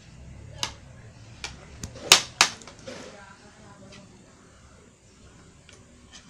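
A metal fork clinking against a plate as it spears pieces of hotcake: several sharp clinks, the two loudest a little past two seconds in.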